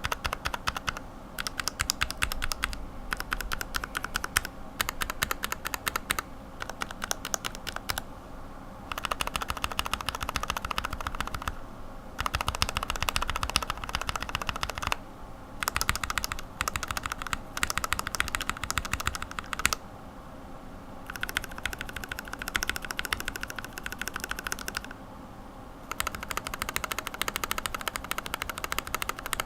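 Lubed linear mechanical keyboard switches being pressed in quick runs of clacks, burst after burst with short pauses between. The switches are Greetech Red, Cherry Red, Revo White, TTC Red, and an Alias housing with a Gateron-style stem, all lubed with Tribosys 3204.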